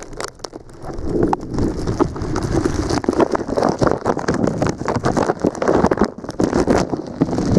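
Footsteps crunching through snow, with wind buffeting the microphone.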